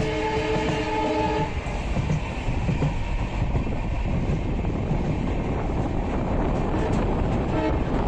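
WDP4B diesel locomotive's horn sounding a multi-tone chord that cuts off about a second and a half in. The train then runs on with a steady rumble of wheels on rail, and the horn gives a brief faint note near the end.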